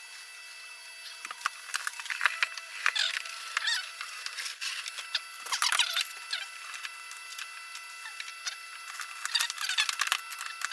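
Hard plastic clicking, knocking and squeaking as a plastic egg turner tray is lifted out of an incubator and handled, starting about a second in, over a faint steady hum.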